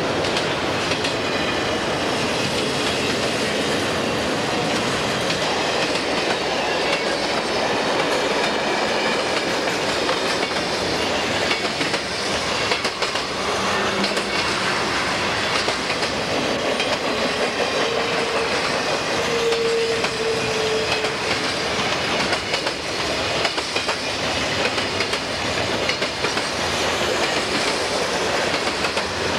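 Freight cars of a long train rolling past close by, with a steady rumble and the wheels clattering over the rails. About two-thirds of the way through, a short steady squeal rises from the wheels on the curve.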